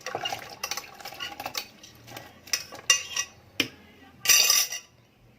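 Cutlery clinking and scraping against dishes in a string of sharp clicks as dates are spooned into the juice, with a louder, longer scrape about four seconds in.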